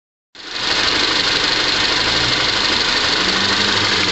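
Car engine idling, heard with the hood open, a steady running sound with a strong hiss. It starts suddenly about a third of a second in, after a brief silence.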